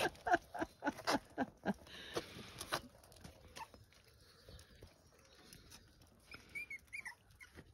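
Puppies squeaking: a few short, high, bending chirps near the end. Before them come a quick run of rustles and light knocks as the puppies push through strawberry leaves in a pot.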